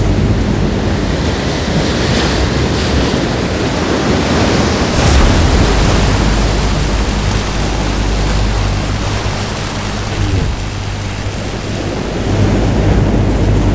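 Designed science-fiction sound effects: a loud, rushing roar over a steady low hum, with a brief whoosh about five seconds in and a swell near the end.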